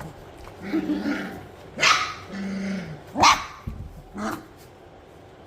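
Three-and-a-half-week-old Standard Goldendoodle puppies barking, three short sharp barks spread over a few seconds, with low drawn-out grumbling calls in between: puppies trying out their voices.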